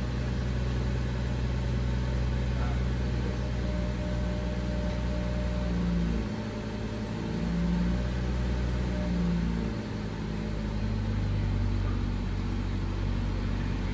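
BMW 540i's turbocharged 3.0-litre inline-six idling steadily, heard from inside the cabin.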